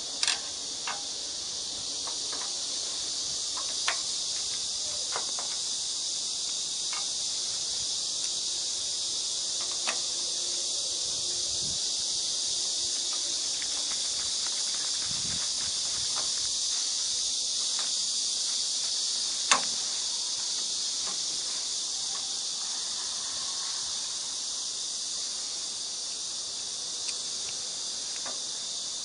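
Steady, high-pitched drone of an insect chorus, with a few scattered sharp clicks, the loudest about two-thirds of the way through.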